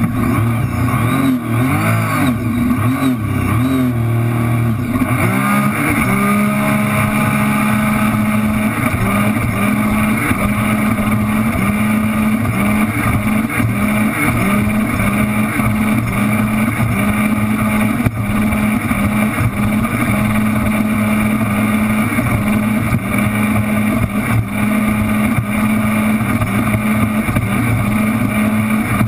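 2007 Sea-Doo RXT personal watercraft's engine running hard under the onboard camera. Its pitch wavers over the first few seconds, then holds steady at speed with brief dips about once a second, over rushing water and wind.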